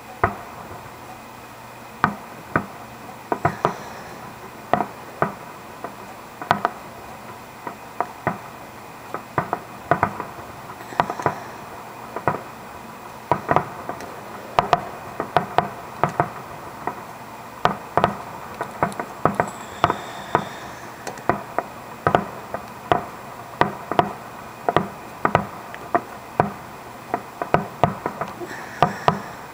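Fireworks finale: aerial shells bursting one after another as sharp bangs, about two a second, coming closer together near the end.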